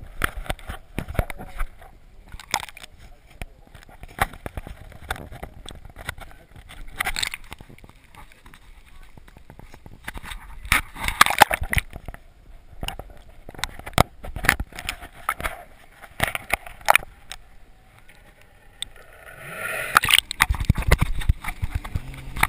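Water heard through a submerged GoPro's waterproof housing: muffled sloshing and gurgling with irregular knocks and clicks as water hits the case. Near the end a louder rush of splashing comes as the camera breaks the surface behind the towed banana boat.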